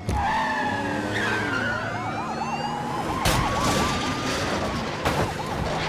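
Film action-chase sound mix: an emergency-vehicle siren yelps in a fast up-and-down cycle over the running engine of a vehicle. There is a sudden loud burst about three seconds in.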